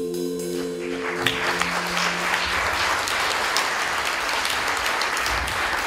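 The last chord of a mallet ensemble piece ringing on a vibraphone with a pulsing vibrato, fading away over the first second and a half. Audience applause starts about a second in and carries on steadily.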